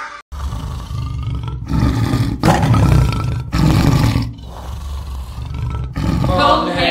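Tiger roaring: a run of low, heavy roars, one after another, broken by short gaps.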